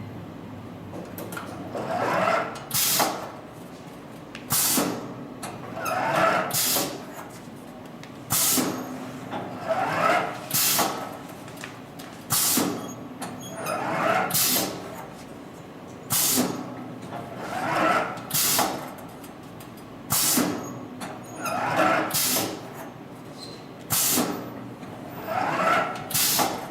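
Automatic hot-knife webbing cutting machine running through repeated cut cycles, about one every four seconds. Each cycle is a swelling run of machine noise ending in a short, sharp stroke.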